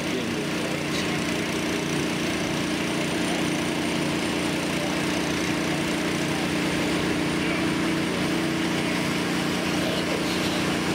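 Small gasoline engine of a portable water pump running steadily at an even speed while it pumps water.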